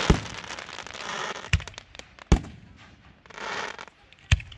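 Aerial firework shells bursting close overhead: four loud, sharp booms with smaller pops around the middle, and a hissing crackle of burning stars between the bursts.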